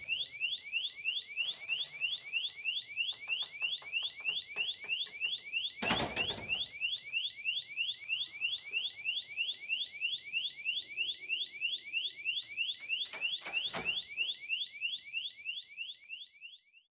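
Electronic escape-route door alarm sounding: a high, fast-repeating rising tone, several sweeps a second. A door shuts with a thud about six seconds in, with a couple of lighter knocks later. The alarm fades out near the end.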